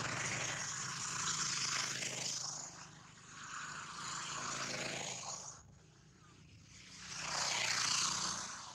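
Motor vehicles passing on a road: engine hum and tyre noise swell and fade, ease off for a moment, then a second vehicle swells past and fades near the end.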